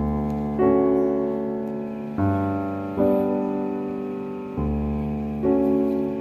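Background piano music: slow chords struck every second or so, each left to fade before the next.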